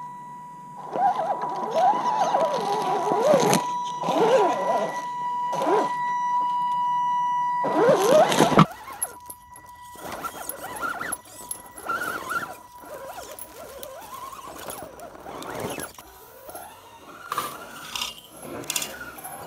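Electric RC rock crawler driving over rocks: its motor and gears whine, rising and falling in pitch with the throttle. After a cut about nine seconds in, tyres crunch and scrape over stones and leaf litter, with short clicks and squeaks from the drivetrain.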